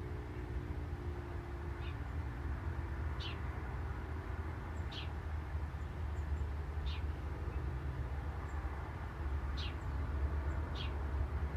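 A bird calling repeatedly with a short, high note that falls in pitch, about six times a second or two apart, with a few fainter, higher chips from another bird. Underneath runs a steady low rumble of outdoor background noise.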